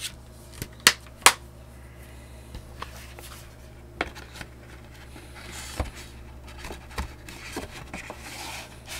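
Hands handling packaging: a few sharp clicks and knocks, the loudest two about a second in, with light rustling in between, over a steady low hum.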